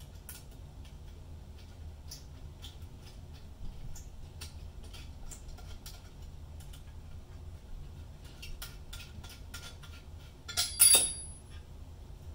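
Small screws being fitted and driven down by hand with a small tool into a Leica S9i microscope's focus column, giving scattered light clicks and ticks. Near the end comes a louder metallic clink that rings briefly.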